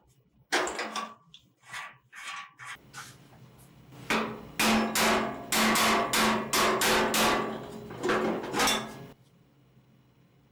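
Hammer striking the steel parts of a 1960s Murray pedal car as it is taken apart. A few scattered blows come first, then a quick run of about a dozen strikes, roughly three a second, with a metallic ring under them.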